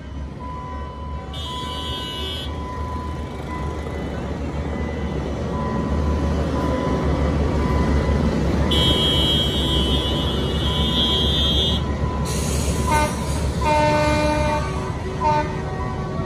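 Passenger train running past on street-side track: a steady rumble of the rolling cars, deepest in the middle. A high steady tone comes and goes twice, over road traffic. Several short horn blasts sound near the end.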